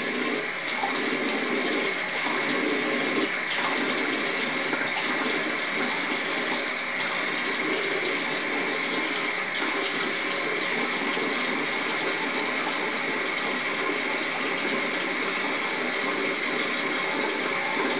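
Tap water running steadily, its sound shifting slightly as hands work in the stream.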